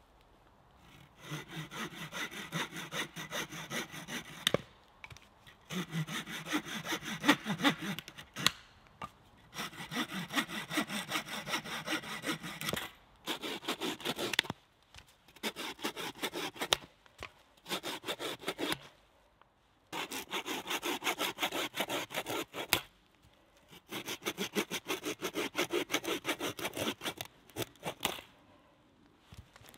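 Folding saw cutting through a thin stick with rapid back-and-forth strokes, in a string of short bouts with brief pauses. The saw is held still between the knees and the wood is drawn across the blade.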